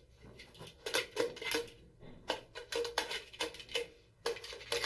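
Arctic fox pawing at a wall light switch: a run of about a dozen quick, sharp clicks and scratches from its claws on the switch plate and tiled wall, irregularly spaced, starting about a second in.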